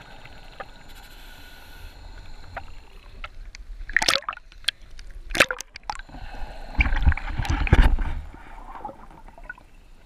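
Underwater bubbling and water rushing around a scuba diver, heard through an underwater camera: exhaled air escaping from the full face mask. Short sudden bursts come about four and five and a half seconds in, and a longer, louder stretch about seven to eight seconds in.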